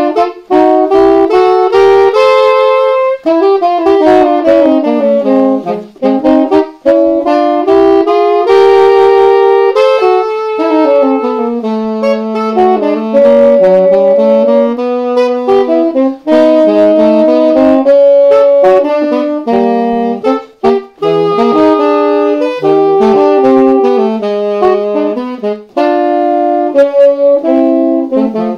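Two tenor saxophones playing a duet in harmony, two melody lines moving independently, with brief breaks between phrases.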